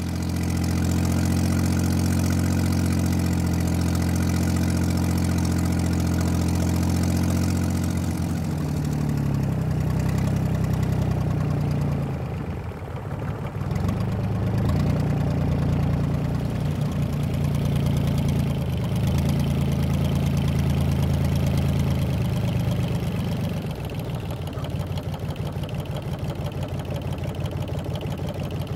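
Small fishing boat's engine running, just started after the net is hauled in. It holds a steady speed at first, changes speed about eight seconds in with a short dip a few seconds later, and runs quieter for the last few seconds.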